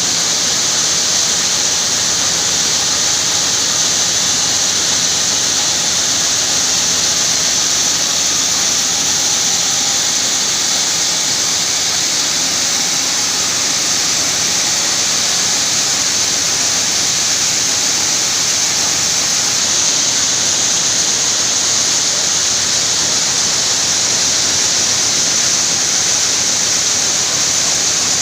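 Coffee bean sorting sieve machine running, beans shaking across its screens in a steady, high hiss.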